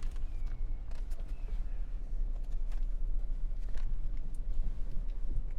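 Low, steady road-and-engine rumble of a vehicle driving slowly, heard from inside the cabin, with scattered small clicks and rattles.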